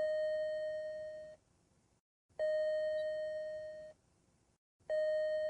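PetSafe Smart Pet Doorbell's electronic chime sounding three times, about every two and a half seconds. Each is a single steady tone that starts sharply and fades slightly over about a second and a half. The chime is the doorbell's signal that a pet wearing its SmartKey is within range of the door.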